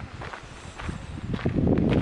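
A hiker's footsteps on a trail, about two steps a second, getting louder near the end.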